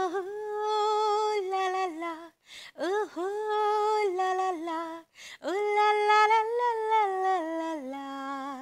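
A woman singing a wordless melody with no accompaniment. It comes in three long phrases, each opening with an upward swoop into a held note and then stepping down.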